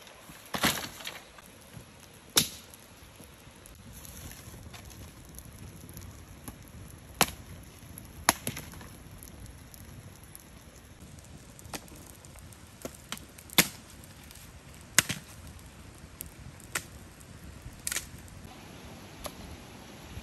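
About a dozen sharp knocks at irregular intervals, a second or several seconds apart, over a low steady background.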